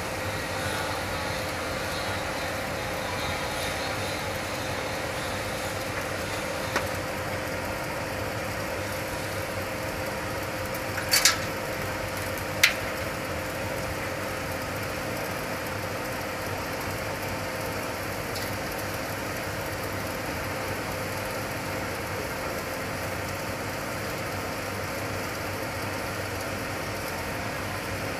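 Steady hum of running machinery with a constant mid-pitched tone. A few sharp metal clicks stand out a third of the way through, the loudest a close pair followed by a single click.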